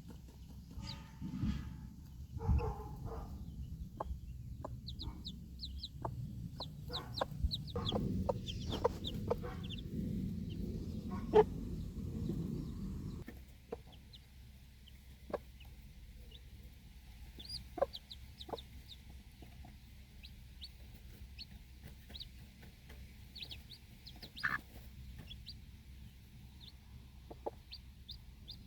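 Mother hen clucking while her baby chicks peep in many short, high chirps, with scattered sharp ticks. A low rumbling noise runs under the first half and stops abruptly about halfway through.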